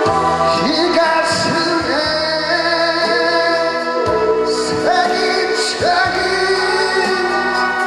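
A man singing a song into a handheld microphone over amplified instrumental backing music.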